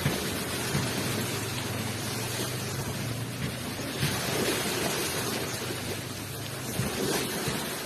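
Ocean waves rushing onto the shore: a continuous surf wash with a steady low rumble beneath it.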